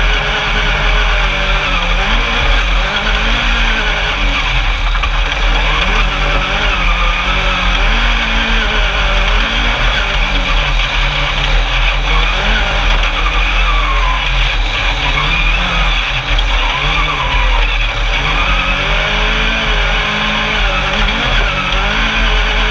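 Engine of a single-seat Class 10 off-road race buggy heard from on board at race pace. It revs up and down again and again as the throttle opens and closes, over a constant rushing noise.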